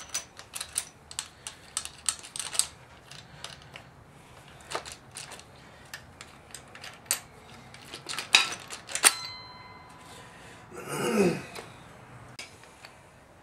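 Metal tools and engine parts clicking, tapping and clinking during hands-on disassembly. The clicks come in quick runs, the loudest clanks are a little past the middle, and one clink about nine seconds in rings on briefly. A short sound falling in pitch follows about two seconds later.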